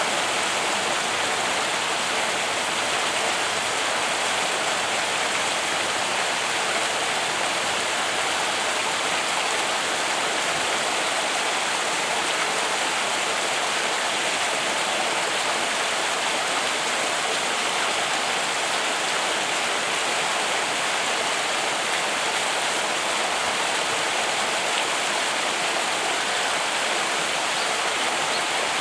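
Steady rushing of running water, an even hiss with no change throughout.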